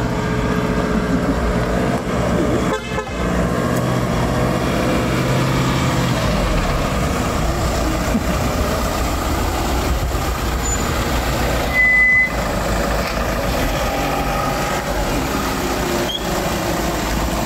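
A van's engine running as it rolls slowly past, with one short, high toot about twelve seconds in.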